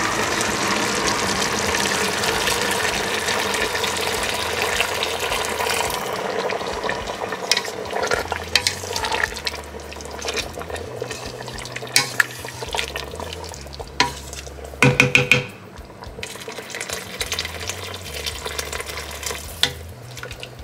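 Wooden spatula stirring chicken and broth in a stainless steel pressure cooker, with scrapes and taps against the pot. A steady sizzling hiss from the hot pot lasts about six seconds before giving way to the scattered stirring clicks, and there is one louder knock about fifteen seconds in.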